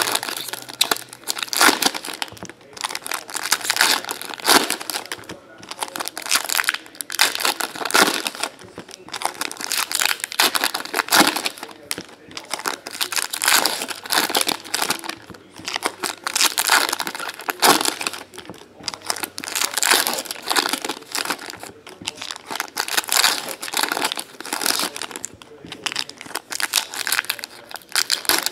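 Foil trading card pack wrappers crinkling as they are torn open and handled, in a dense, irregular stream of crackly rustling.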